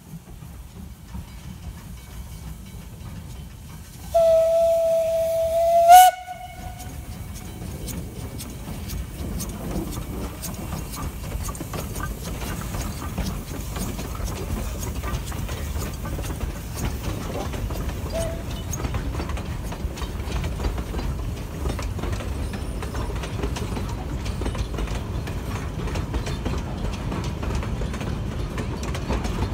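Steam locomotive whistle sounding one long note for about two seconds, starting about four seconds in, rising slightly and stopping with a sharp crack. Then the 1926 Beyer-Garratt G42 and its passenger carriages roll past with a steady rumble and clatter of wheels on the narrow-gauge track, slowly growing louder.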